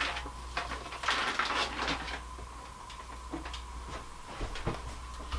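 Light kitchen handling noises: soft rustling and clatter of containers and food being moved about on the counter, mostly in the first two seconds, then a few faint knocks. A low steady hum runs underneath.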